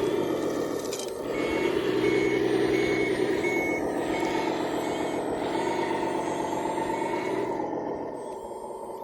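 A model construction machine's reversing alarm beeping at one pitch, about two beeps a second, over the steady hum and whine of its running machinery. The beeping stops about halfway, one more beep comes later, and the machine sound drops off near the end.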